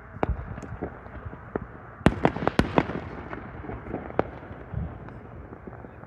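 Fireworks going off: a string of sharp bangs and pops at uneven spacing, loudest in a quick cluster about two seconds in, over a steady background hiss.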